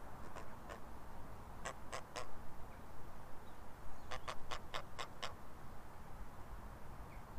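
Grey heron's bill pecking and tapping at a fishing rod pod: sharp clicks, two faint ones, then three, then a quicker run of seven at about five a second.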